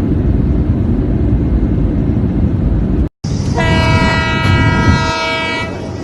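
Train rumbling along, then, after a split-second break, a train horn sounds one steady blast of about two seconds over the rumble.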